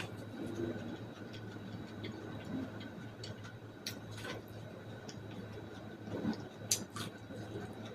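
Eating sounds from chewing boiled corn on the cob: irregular wet clicks and smacks of the mouth, with a few sharper clicks near the middle and end, over a faint steady hum.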